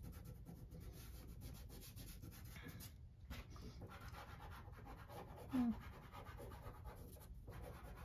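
Faint scratching and rubbing of a soft pastel stick and a fingertip on watercolor paper, in many short quick strokes. A brief low vocal hum a little past halfway.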